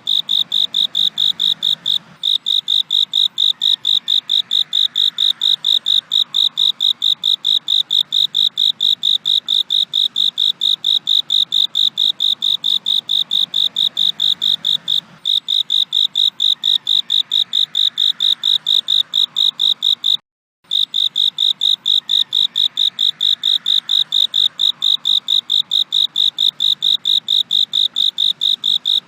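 Cricket chirping: one high-pitched, rapid, even pulsing trill that goes on steadily, with a half-second break about two-thirds of the way through.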